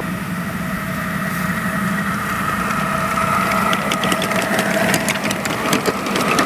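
A small engine idling steadily with an even hum, joined by a run of light clicks from about four seconds in.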